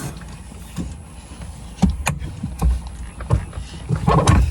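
NRG quick-release steering wheel hub being worked by hand: scattered sharp clicks and knocks as the collar is pulled and the wheel is worked off the hub, with a louder thump near the end.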